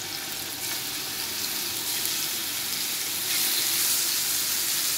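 Marinated chicken strips sizzling in hot oil in a nonstick pan as they fry, a steady hiss that grows a little louder about three seconds in.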